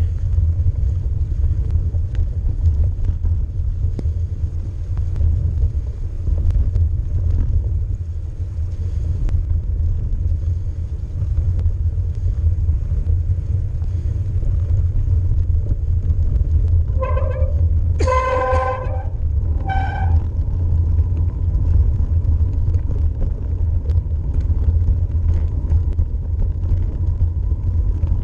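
Mountain bike riding noise picked up on a GoPro: a steady low rumble throughout. About two-thirds of the way in come three short pitched toots, the middle one the longest.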